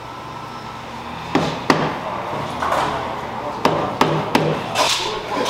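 A mallet knocking on a motorcycle handlebar and riser clamp, about six sharp blows: two about a second and a half in, then four more in quick succession a couple of seconds later.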